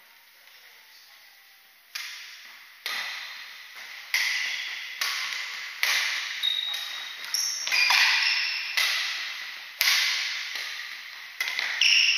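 Badminton rally: rackets striking a shuttlecock about once a second, starting about two seconds in. Each hit is a sharp, echoing smack, and between the hits a few short squeaks come from shoes on the wooden court.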